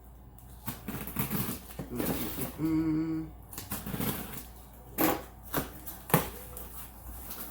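Cardboard box being opened and handled: scattered crackling, tearing and rustling of the cardboard and packing, with two sharper knocks about five and six seconds in.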